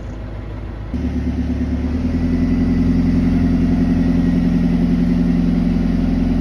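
Narrowboat's diesel engine running steadily at cruising speed. About a second in it becomes suddenly louder, then holds an even, low chug.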